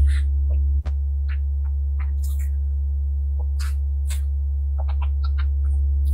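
A steady low electronic drone with a few held tones above it, cut out for an instant a little under a second in. Over it, scattered soft clicks and mouth smacks of eating a cream cake with a spoon.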